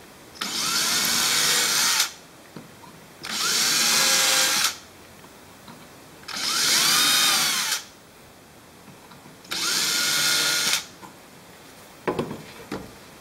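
Hand-held power drill with a 9/64-inch bit boring pin clearance holes deeper into a G10 handle scale, a little at a time. It runs in four short bursts of about a second and a half each, the motor's pitch rising and falling with each trigger pull. A few short clatters come near the end as the drill is handled.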